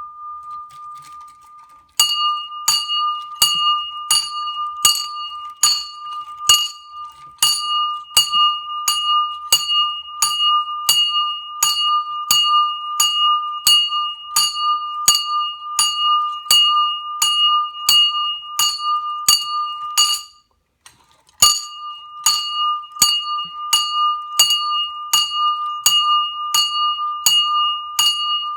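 A custom bell rung repeatedly, about two strokes a second, each stroke ringing into the next on one clear high bell tone. It opens with a fading ring before the strokes begin, and the ringing stops for about a second past the two-thirds mark before starting again.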